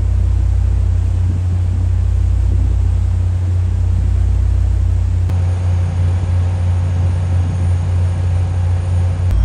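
Steady low rumble of a ship's engines heard from on board, with an abrupt change in the sound about five seconds in and again near the end.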